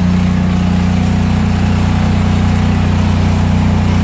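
Lincoln Ranger 10000 engine-drive welder-generator running at a steady, unchanging speed with a loud, even hum.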